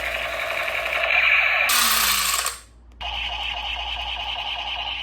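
Electronic toy gun sound effects: a steady buzzing sound, a burst of hiss about two seconds in, a brief break just before three seconds, then the buzzing again.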